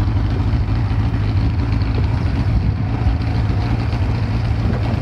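Yamaha 115 outboard motor running steadily at low speed, a low, even hum.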